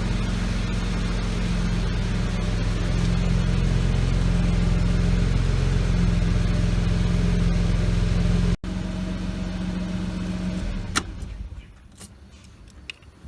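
1983 Mercedes-Benz 280SE's twin-cam straight-six engine running steadily, then falling quiet about eleven seconds in, followed by a few sharp clicks.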